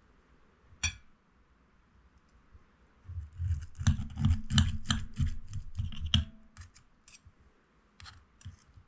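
Steel table knife sawing back and forth through a hamburg steak, scraping on the ceramic plate in quick strokes for about three seconds, ending with a short ring. A single clink of cutlery on the plate about a second in, and a few faint clicks near the end.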